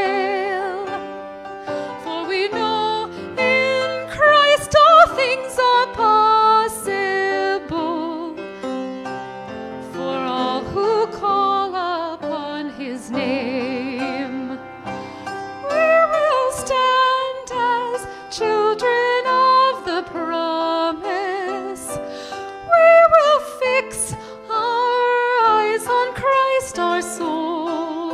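A woman singing a hymn solo with vibrato into a microphone, accompanied by a grand piano.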